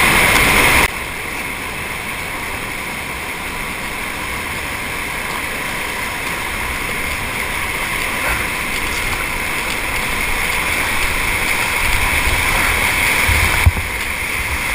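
Whitewater rapids rushing steadily around an inflatable kayak, loud for the first second, then slowly building. Near the end comes low rumbling on the microphone and a single sharp knock.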